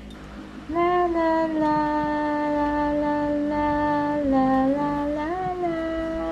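A voice holding one long, nearly level note for about five seconds, with a short dip about four seconds in and a step up in pitch near the end.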